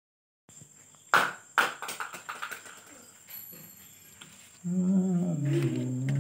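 Knocks and rubbing of a phone being handled close to its microphone, then, from a little before the end, a man humming a tune in a low voice with small steps in pitch.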